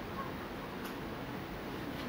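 Steady room noise, a low even hiss, with a faint click a little under a second in.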